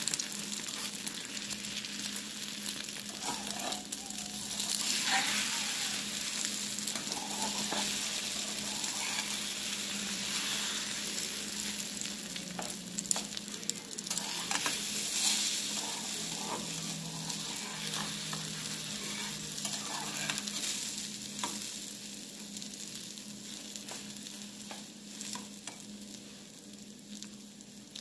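Beaten egg with chopped onion leaves sizzling in hot oil in a frying pan, with a metal spatula scraping and pushing the egg around the pan now and then. The sizzle grows quieter over the last few seconds.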